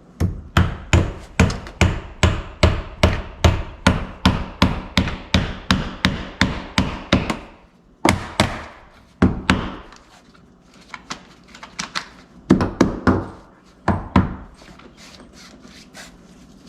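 Hammer driving nails into wood: a steady run of blows, about three a second for some seven seconds, then a couple of single blows and two shorter runs of strikes near the end.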